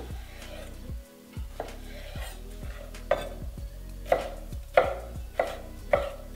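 Chef's knife chopping a fresh cucumber into cubes on a wooden cutting board. A couple of lighter cuts come first, then steady chops about every two-thirds of a second, each a sharp knock of the blade on the board.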